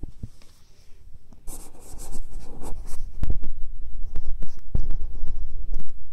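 Handling noise on a phone's microphone: rubbing and scraping with many sharp knocks and a deep rumble as the phone is moved. It gets louder about a second and a half in.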